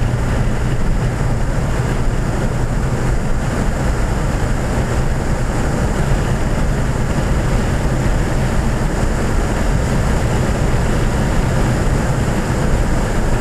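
2014 Ford Fiesta ST's turbocharged 1.6-litre four-cylinder engine running steadily at track speed, heard inside the cabin with wind and tyre noise as a continuous low drone.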